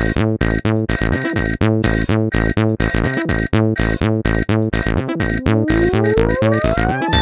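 Nokia 3100 mobile phone ringtone playing: a fast, busy synthesized tune of rapid staccato notes, about six a second, with a tone that glides steadily upward over the last couple of seconds.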